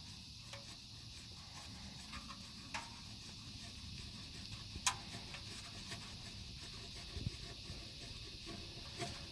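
Faint steady hiss with a few light clicks, the clearest one about halfway through.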